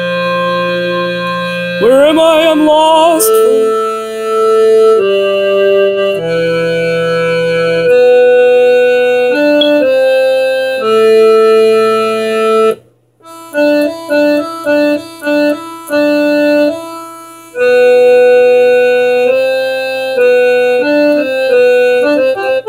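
Home electronic organ played haltingly by a beginner: held chords and sustained single notes with a reedy tone. The playing stops briefly about halfway, then comes back as a string of short detached notes before held notes return.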